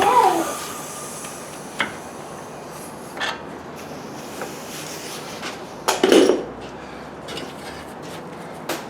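Metal hand tools and parts clinking and knocking now and then, a handful of separate strikes with the loudest about six seconds in.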